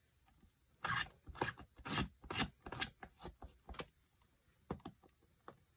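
An inked stamp being wiped clean: about ten quick scrubbing strokes over roughly three seconds, then a few light clicks and knocks near the end.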